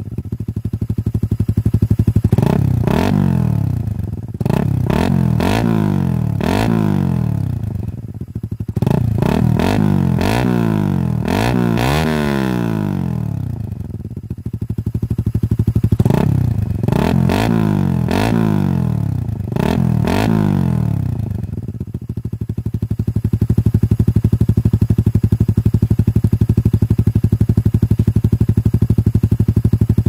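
Suzuki Raider R150 Fi's single-cylinder four-stroke engine, heard through its exhaust muffler, revved in quick throttle blips. The pitch climbs and drops with each blip, in four bunches over the first twenty seconds or so, then the engine settles into a steady, unchanging run.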